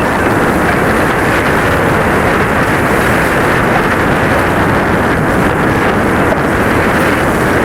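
Loud, steady wind noise buffeting the microphone aboard a sailing catamaran.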